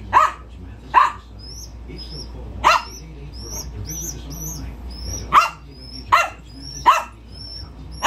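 Small white dog barking sharply six times at uneven intervals, while a young pigeon keeps up a stream of short, high cheeping cries between the barks.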